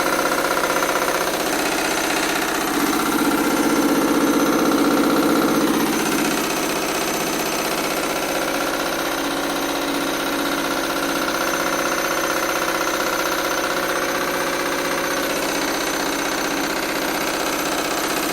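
Washing machine on its 1200 rpm final spin: the motor whines steadily while the drum shakes violently back and forth and the cabinet rattles and knocks rapidly, a little louder a few seconds in.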